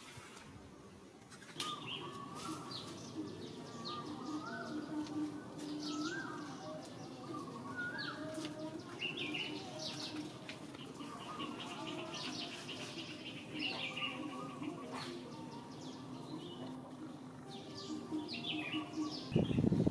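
Wild birds chirping and calling over and over, short bright chirps and trills from several birds over a steady outdoor background. A brief, louder low burst comes near the end.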